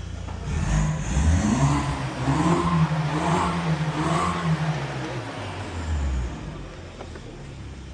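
Ferrari 458 Italia's 4.5-litre naturally aspirated V8 revving at moderate engine speed: the revs climb about half a second in, rise and fall several times, then settle back down about six seconds in.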